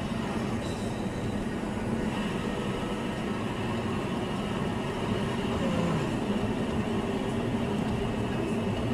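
A vehicle running steadily, with an even rumble and a low hum that do not change.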